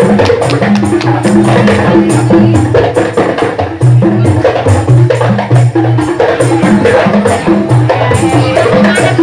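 Qasidah rebana music: an ensemble of rebana frame drums struck in a fast, dense rhythm over low held notes that move in steps.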